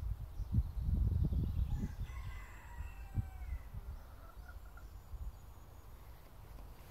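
A rooster crows once, starting about two seconds in and lasting about a second, followed by a few short notes. Under it is a low rumble, loudest in the first two seconds.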